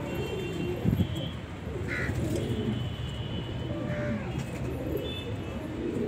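Domestic pigeons cooing in low, repeated rising-and-falling coos. There is a light knock about a second in.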